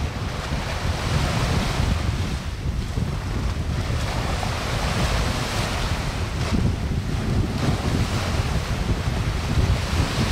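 Small waves washing up a sandy beach and drawing back, the hiss swelling and fading every few seconds, with wind buffeting the microphone as a low rumble underneath.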